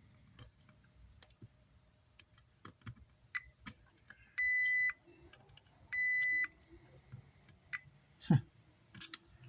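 Multimeter continuity beeper sounding twice, each a steady high beep of about half a second, a second and a half apart, as the probes touch points on the amplifier board. Light clicks of the probes tapping around it, and a short thump near the end.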